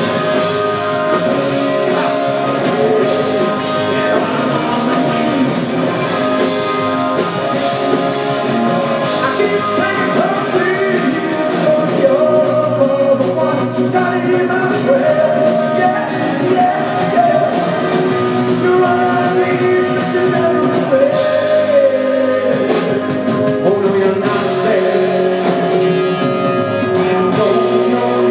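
Rock band playing live with electric guitar and drums, a male lead vocal singing over it.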